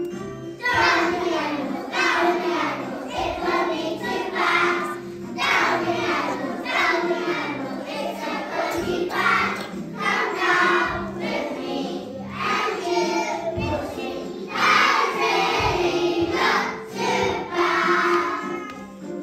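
A group of young children singing a song together in chorus over an instrumental accompaniment with a steady beat.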